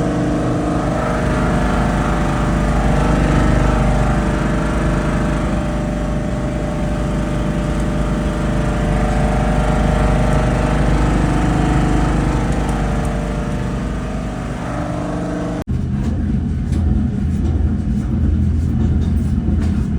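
Large Carrier air handling unit blower running with a steady hum of many held tones. About three-quarters of the way through it switches abruptly to a lower, rougher rumble with irregular clicks. The noise is the blower's sound problem, which the uploader puts down to the blower being out of balance.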